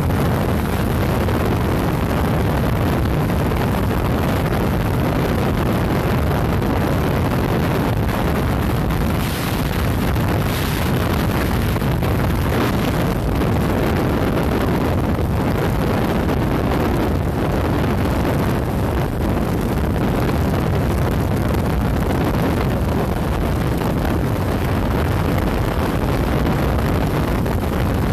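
Wind rushing over the microphone on a motorcycle at highway speed, mixed with the bike's engine and road noise, loud and steady.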